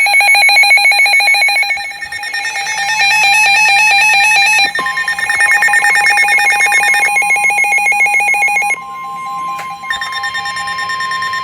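Several NOAA weather radios sounding their alert alarms at once, a layered mix of fast-pulsing, warbling electronic beeps. About five seconds in, a single steady tone near 1 kHz, the weather radio warning alert tone, comes in and holds to the end, while some of the beeping drops out near the nine-second mark.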